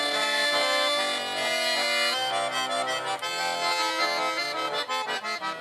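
Accordion playing an instrumental passage of a Russian folk song: held notes and chords at first, then quicker, shorter notes in the second half.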